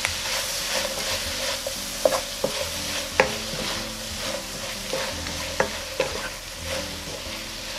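Sliced onions and green chilies sizzling in oil in a nonstick frying pan while being stir-fried with a wooden spatula, which scrapes through the food and now and then knocks sharply against the pan.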